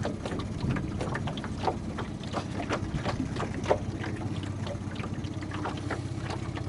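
Small fishing boat's motor running steadily with a low hum, while water laps and splashes against the hull in quick, irregular little slaps.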